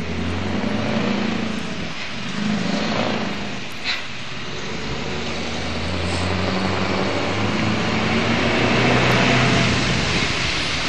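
Scania R500 V8 diesel truck engine clattering as it approaches slowly, a low steady engine note growing louder as the truck nears. A short sharp click about four seconds in.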